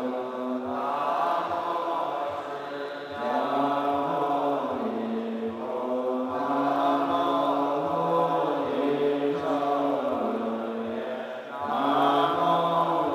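Chinese Buddhist monks chanting together in a slow, melodic chant of long held notes that glide in pitch. There are brief dips between phrases about three seconds in and again near the end.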